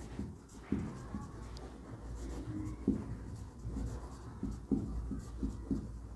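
Writing: a pen or marker making short, irregular strokes on a writing surface, over a faint low hum.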